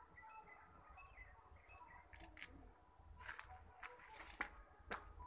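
Faint birds chirping with short repeated notes, then, from about two seconds in, a series of sharp clicks and taps.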